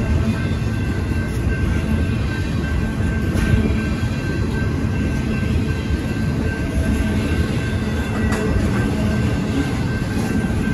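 Double-stack container well cars of a freight train rolling past: a continuous low rumble of wheels on rail, with a faint steady high tone above it.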